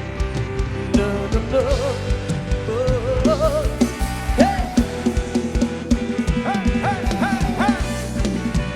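Live rot hae band playing an instrumental passage: a lead melody with repeated pitch bends over a steady drum-kit beat and bass.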